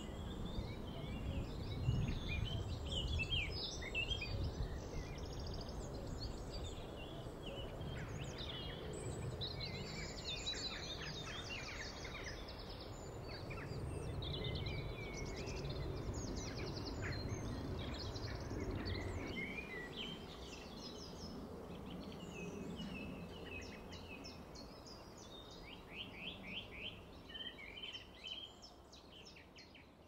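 Several songbirds singing at once, overlapping chirps and warbled phrases, with a fast trill near the end. A low rumble runs underneath and fades out about two-thirds of the way through.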